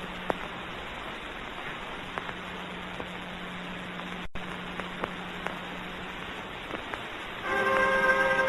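Hiss and surface noise of an early sound-film soundtrack, with a steady low hum and scattered faint crackles and clicks, and a brief dropout about four seconds in. Music with held notes comes in near the end.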